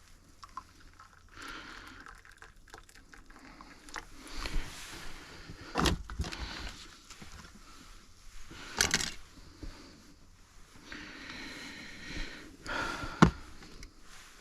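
Scattered knocks and scrapes with rustling between them, the sharpest knocks about six, nine and thirteen seconds in.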